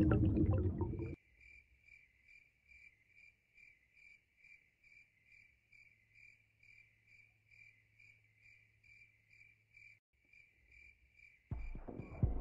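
A rushing, surf-like noise cuts off abruptly about a second in, leaving a cricket chirping steadily, about three chirps a second, over near silence. Other sounds come in near the end.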